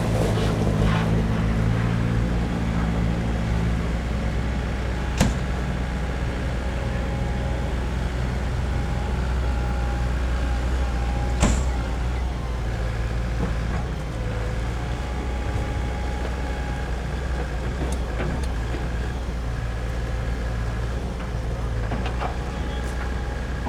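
Doosan DX140LCR-5 short-radius excavator's diesel engine running steadily, heavier for the first few seconds and then settling. Two sharp knocks cut through, one about five seconds in and another about halfway.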